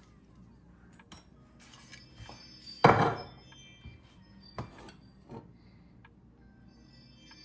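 Cookware handled on a stovetop: a few light clinks and taps, and one loud knock with a short ring about three seconds in.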